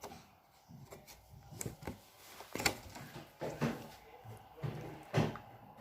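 Slime being handled by hand: irregular soft squishy thumps and sharp little clicks, a few each second, with short pauses between.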